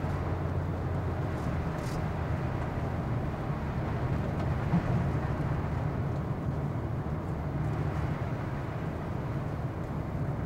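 Steady low road and engine noise heard inside a car's cabin while it drives on a snow-covered road, with one brief bump about five seconds in.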